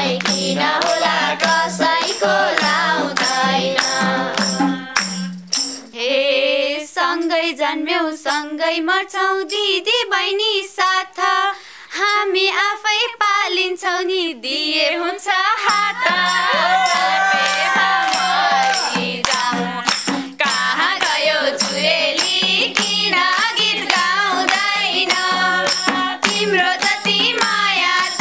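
Nepali dohori folk singing, sung call-and-answer style, over hand clapping and a shaken tambourine's jingles. For several seconds from about six seconds in, the clapping and steady backing fall away and one voice sings alone. The full group comes back a little past halfway.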